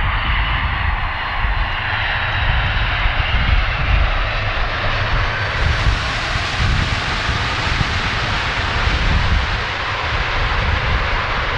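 Jet engine noise of a Boeing 747-400 landing, its four turbofan engines heard as a steady, loud rush with deep rumble. About halfway through, the sound turns brighter and sharper.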